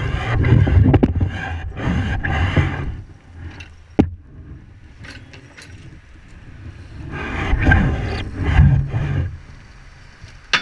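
Muffled rushing and scraping as a lobster trap is hauled out of the water and landed on a boat's deck, heard through a GoPro's waterproof housing. A sharp knock comes about four seconds in and another near the end.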